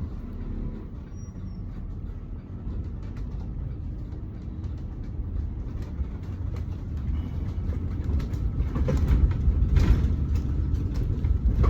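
Ride noise inside a moving city bus: a steady low engine and road rumble that grows louder toward the end, with some knocks and rattles.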